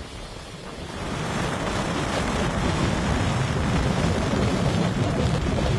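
Storm wind buffeting the microphone: a dense, rumbling rush of gusts that grows louder about a second in and then holds.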